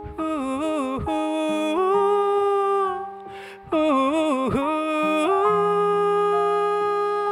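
Male singer's wordless vocalising over held accompaniment chords, a closing ad-lib to a slow ballad: two long phrases, each starting with a wavering run and settling into a long held note.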